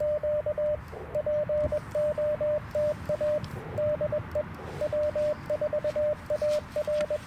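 Morse code sidetone from an Icom IC-705 transceiver, keyed with a twin-paddle key: a single steady mid-pitched beep switched on and off in quick dits and dahs, sent in groups of characters with short pauses between them.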